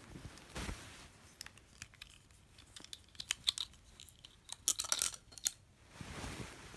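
Bedding and a blanket rustling, with a run of light, sharp clicks and taps from a plastic digital thermometer being handled. There is a soft swish about half a second in and another near the end, and the clicks come in a cluster in the middle.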